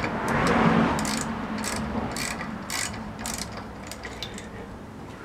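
Ratchet wrench with a 10 mm socket clicking as a bolt is turned out, the pawl clicking about twice a second.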